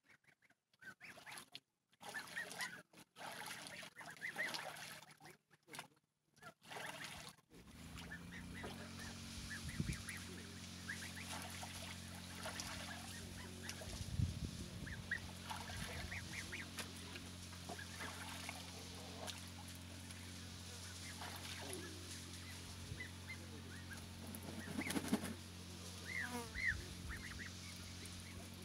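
Domestic geese honking now and then, with goslings' short peeping calls scattered throughout. A steady low hum starts about eight seconds in and continues under the calls.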